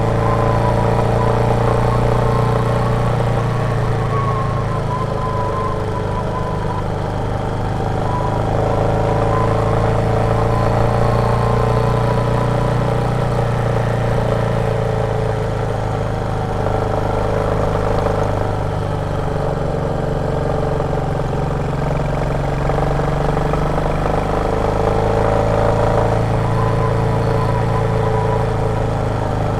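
Royal Enfield Meteor 350's single-cylinder engine running while riding, a steady thump whose pitch eases and picks up slightly a few times as the engine speed changes.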